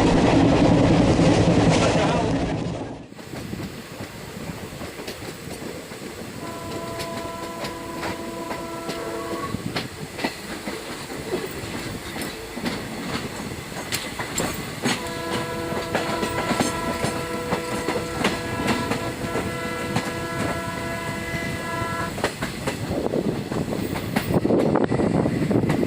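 Diesel-hauled passenger train running on the curve, its wheels clicking and clattering over the rails. The locomotive sounds two long chord horn blasts, the first about three seconds long, the second about seven. A heavier rumble fills the first three seconds and swells again near the end.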